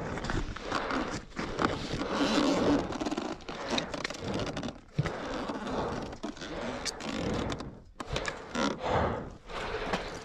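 Irregular scraping and crunching on loose dirt and stones, with scattered knocks, as a heavy motorcycle stuck on a rough off-road climb is worked along by hand.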